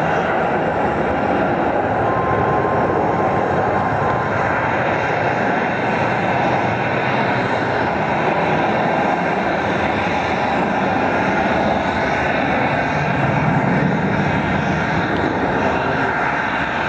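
Jet aircraft engine noise from the airport apron: a steady, loud, continuous noise with no let-up.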